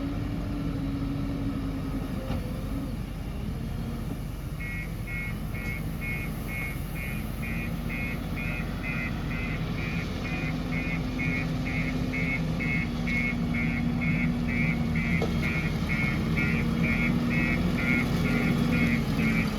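JCB 3DX backhoe loader's diesel engine running under working load, its pitch rising slightly about eight seconds in. From about four seconds in, a reversing alarm beeps steadily, a little over two beeps a second.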